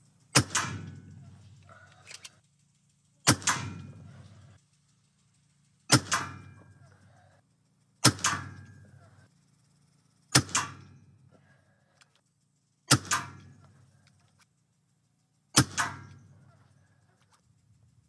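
Seven shots from an Evanix REX-P .357 PCP air pistol fitted with the rifle's air cylinder as a mini carbine, one every two to three seconds. Each is a sharp crack followed at once by a smaller second crack, then a short fading tail.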